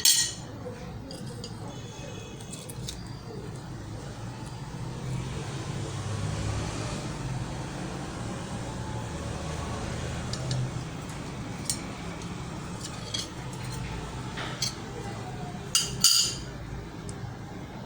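Glass and kitchen utensils clinking against each other over a steady low hum, with a few sharp clinks: one right at the start and the loudest pair about sixteen seconds in.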